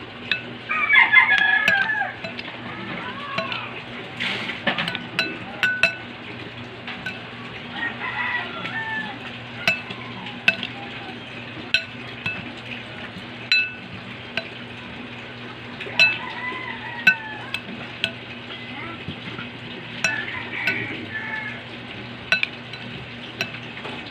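Metal spoon stirring chopped raw shellfish in a ceramic bowl, with irregular sharp clinks of spoon on bowl throughout. A rooster crows about a second in, the loudest sound, and fainter calls come later over a steady low hum.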